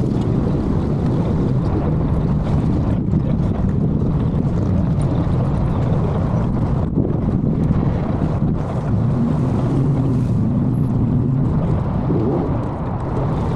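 Steady low rumble of wind on the microphone mixed with the engine noise of motorcycles.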